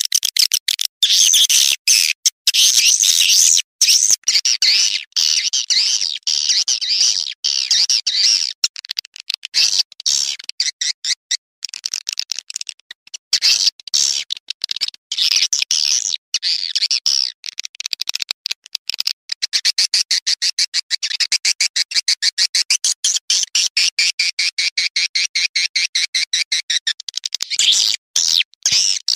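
Edited playback recording of edible-nest swiftlet calls: rapid, rasping chittering twitters in quick runs, turning into a longer, steadier twittering trill in the second half. It is a swiftlet call ('suara panggil') track of the kind played through amplifiers to lure swiftlets into a nesting house.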